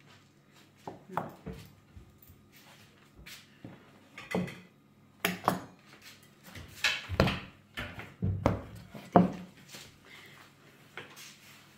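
Wooden rolling pin knocking and rolling against a wooden pastry board as dough is pressed and rolled out: a run of irregular knocks and thumps, thickest and loudest in the second half.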